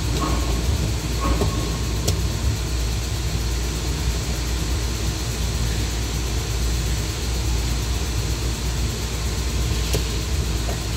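Steady low rumble with an even hiss, with a sharp click about two seconds in and a fainter one near the end as a plug-in control relay is handled.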